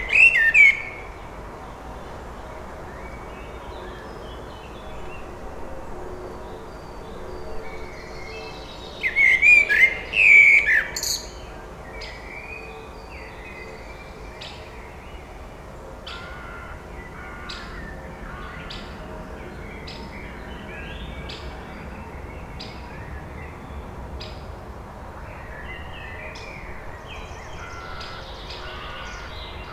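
Male Eurasian blackbird singing: a loud warbling phrase just at the start and another about nine to eleven seconds in. Fainter bird chirps fill the gaps between.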